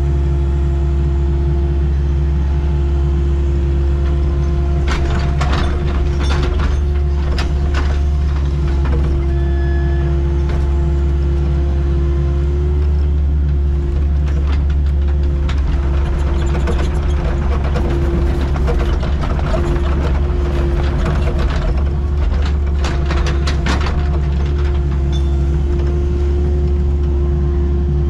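Excavator's diesel engine running steadily with a constant low hum and a steady tone above it. Bursts of metallic clattering and rattling come about five seconds in and again through the middle.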